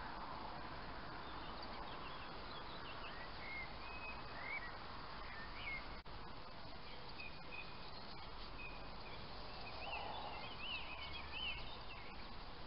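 Small birds chirping and warbling, many short high calls scattered over a steady background hiss, busiest near the end.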